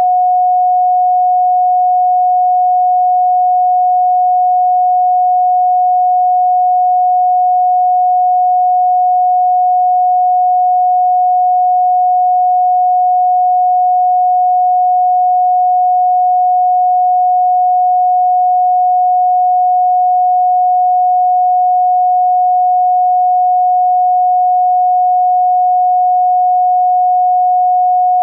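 Pure electronic sine tone at 728.131 Hz, held at one pitch and an even level.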